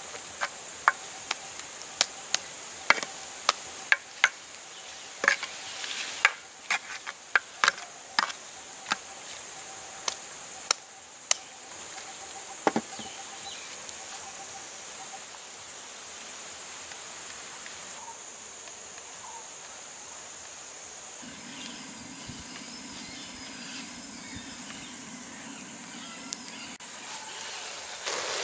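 Steady high-pitched drone of insects, with a run of sharp clicks and knocks over the first dozen seconds that then stop. A low rumble joins for several seconds near the end.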